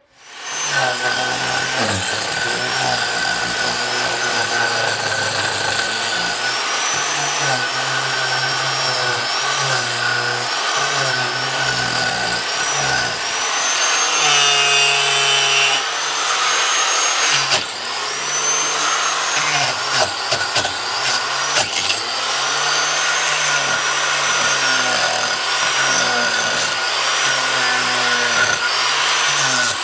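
A handheld power tool's motor running almost continuously, its pitch dipping and recovering again and again as it works under load, as when cutting out rotted wood from a log. Halfway through there is a brief higher whine.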